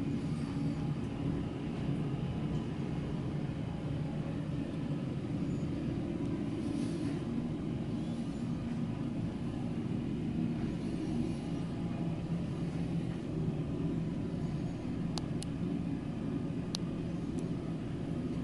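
Steady low rumble with a faint steady hum, and a few faint sharp clicks about fifteen to seventeen seconds in.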